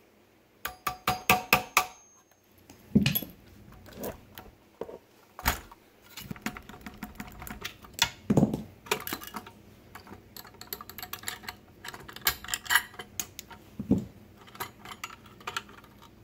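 Small metal parts of a spot welder's electrode-arm assembly clicking and clinking as it is taken apart by hand. A quick run of about six sharp, ringing metallic ticks comes near the start, followed by scattered taps and knocks and a denser patch of clinks later on.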